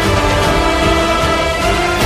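Background music with sustained chords and a steady low beat.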